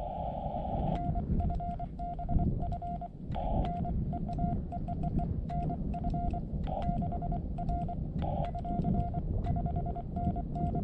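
Morse code (CW) on a portable ham radio transceiver: a single steady-pitched beep keyed on and off in dots and dashes, with a brief patch of hiss around the tone at the start and a few more times.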